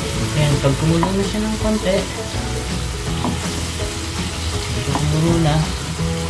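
Garlic and onion sizzling in simmering soy-sauce liquid in a nonstick pan, while a wooden spoon stirs and scrapes through the mixture.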